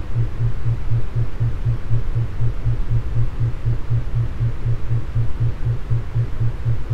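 Brainwave-entrainment beat track: a low hum pulsing on and off evenly about four times a second, over a steady low noise.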